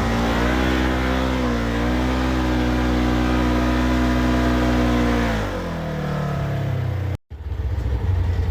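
Off-road vehicle engine held at steady high revs, wavering briefly, then dropping off about five seconds in. After a cut near the end, a lower, pulsing engine sound.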